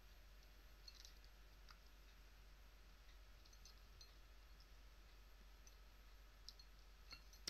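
Near silence with a few faint, short clicks and taps, about a second in and again near the end: a cat pawing at a toy mouse in a glass water bowl.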